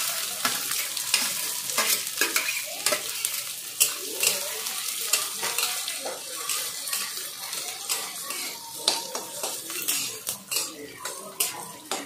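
Chopped onion, green chilli and garlic sizzling in hot mustard oil in a metal kadhai, with a spatula scraping and knocking against the pan as it is stirred in short strokes.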